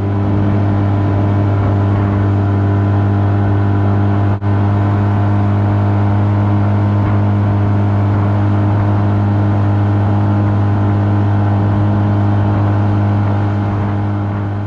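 Outboard boat motor running at a steady speed, a constant hum that holds one pitch throughout, with a brief dropout about four and a half seconds in.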